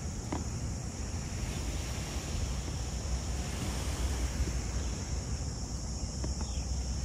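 Wind buffeting the microphone in a steady low rumble, with a couple of faint clicks, about a third of a second in and near the end, from the cooler's plastic strap buckle being handled.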